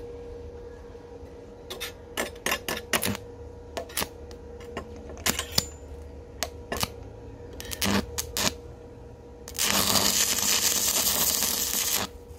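Metal parts clicking and knocking as they are handled, then about two and a half seconds of loud, steady hissing crackle near the end: a short weld on the stainless steel tube. A steady hum runs underneath.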